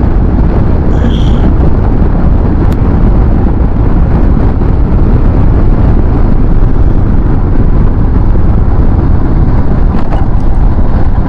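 Wind buffeting the microphone of a moving motorcycle, a loud, steady rumble with the bike's engine running underneath.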